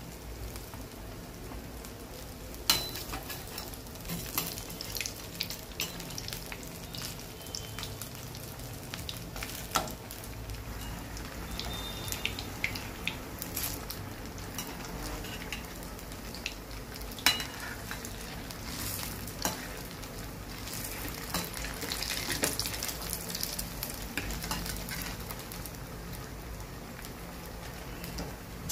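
Semolina-coated potato cutlets deep-frying in refined oil in an aluminium kadhai: a steady sizzle and crackle of bubbling oil. A few sharp clinks come from the metal slotted spoon on the pan as the cutlets are turned.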